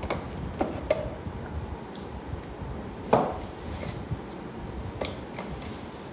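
Hard plastic clicks and knocks as a Ninja Creami outer bowl is twisted out of the machine and handled. A louder knock about three seconds in is the bowl set down on a glass table top. More clicks follow as its lid, with the mixing paddle, is unlocked and lifted off.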